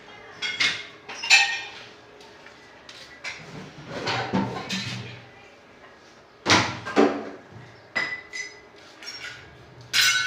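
A series of separate knocks and clatters, several of them with a short metallic ring, spaced a second or more apart.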